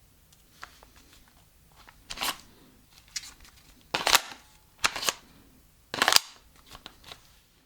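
Magazine of a Krytac Kriss Vector airsoft replica being released with the mag release button, pulled out and clicked back in: a series of sharp clacks, the loudest about four and six seconds in.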